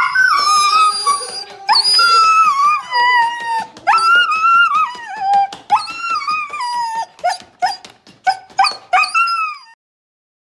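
Husky whining and howling in a string of long, wavering calls that mostly fall in pitch. The calls turn shorter and choppier near the end, then stop.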